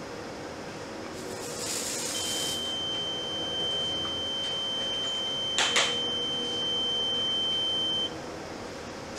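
A short hiss of smoke-detector test spray, then the Graviner Mk 6 oil mist detector unit's alarm: one steady high beep for about six seconds that cuts off suddenly, with two sharp clicks a little past halfway. The alarm signals that the detector head has sensed the simulated oil mist.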